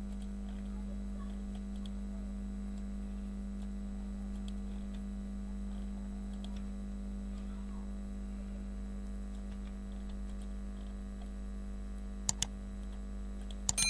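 Faint computer mouse and keyboard clicks over a steady electrical hum. About twelve seconds in come two sharp clicks, and near the end a click and a short bell-like ding.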